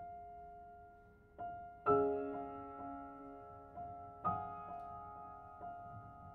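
Solo piano playing softly: repeated single notes, with two louder chords struck, about two seconds in and again about four seconds in, each left to ring and fade.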